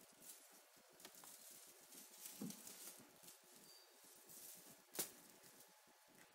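Faint rustling and light scattered taps of kittens moving about on a carpeted cat tree, with one sharp click about five seconds in.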